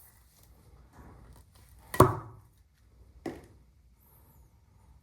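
Rifle parts being handled on a work surface: a sharp knock about two seconds in and a lighter one about a second later, with faint handling noise between.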